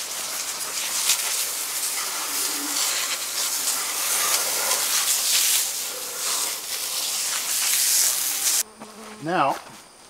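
A loud steady hiss that starts abruptly and cuts off suddenly after about nine seconds, over honeybees buzzing around the open hive. Near the end comes a short wavering buzz.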